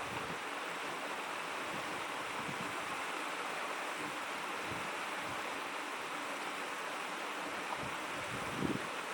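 Shallow babbling stream flowing steadily, an even rush of water with a few brief low gurgles, one a little louder near the end.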